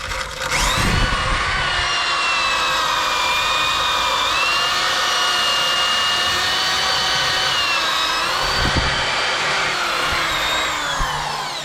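Electric drill spinning a wire wheel brush in reverse to straighten bristles gummed up with seam sealer. The motor whine rises at the start, runs steadily with small shifts in pitch, and winds down near the end.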